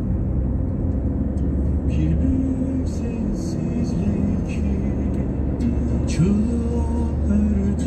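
Steady low rumble of a car driving on the road, with background music of held notes over it.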